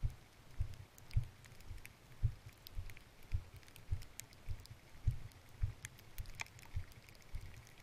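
Irregular low thumps, about two a second, with scattered light ticks: a car creeping over a rough gravel road, heard from inside the cabin as the body and camera mount jolt. No clear engine note stands out.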